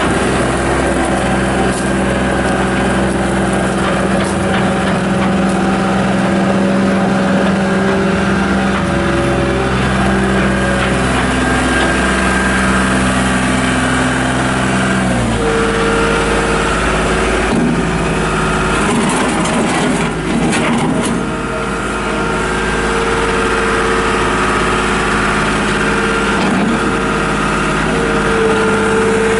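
John Deere 240 Series II skid steer loader's diesel engine running steadily. About halfway through its note changes, with a new, higher steady tone taking over.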